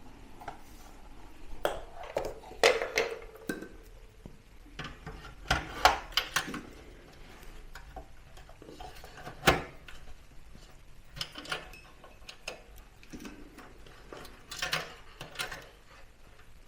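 Irregular clicks, clinks and knocks of metal and plastic computer parts being handled and fitted as a small form factor desktop PC is put back together, with a few sharper knocks standing out.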